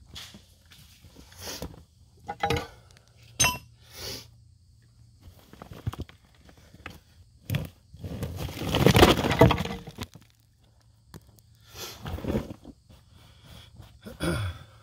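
Rock being pried from a dirt and rock face by hand: scattered knocks and clinks of stone on stone. Between about eight and ten seconds in comes a louder, longer scraping and crumbling as loose rock and dirt are pulled free.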